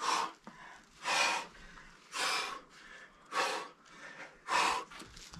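A climber's forceful, rhythmic breaths under hard physical effort: five sharp, noisy huffs, about one a second.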